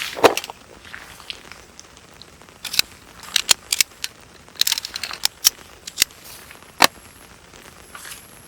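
Irregular sharp clicks and knocks, a dozen or so, clustered mostly in the middle of the stretch, over a faint steady hiss.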